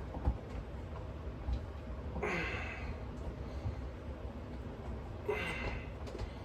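Two forceful breaths out, about three seconds apart, from a man straining through dumbbell tricep extension reps; each starts with a short falling voiced sound.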